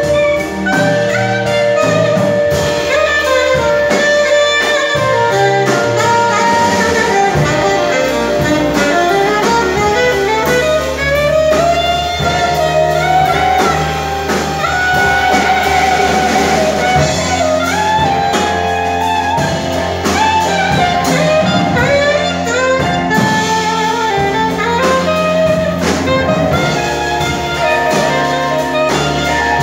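A small jazz ensemble playing live, saxophones leading with other horns in the band. One line slides upward in pitch around ten seconds in.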